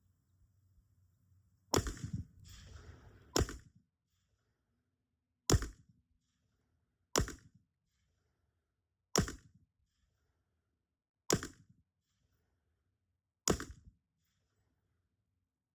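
AR-15 rifle firing seven single shots, spaced about two seconds apart, each a sharp crack with a short tail.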